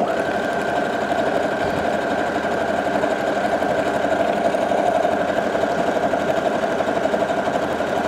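Brother HC1850 computerized sewing machine starting up suddenly and stitching at a steady speed, driven by its foot pedal.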